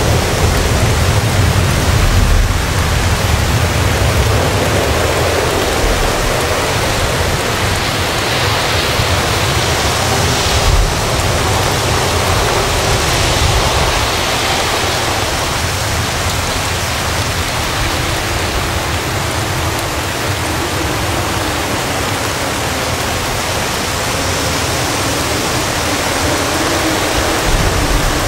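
Heavy rain and strong wind lashing coconut palms: a loud, steady rushing downpour with gusty low rumbling that swells and eases.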